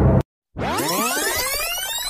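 Synthesized sound effect: a dense cluster of tones gliding upward together, starting about half a second in after a brief cut to dead silence.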